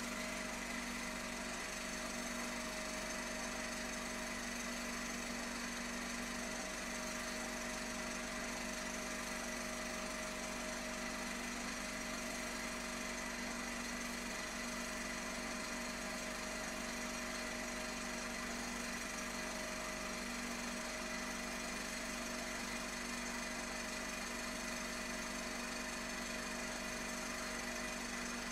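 A steady, unchanging machine-like drone: a buzzing hum with several fixed tones over a noisy hiss.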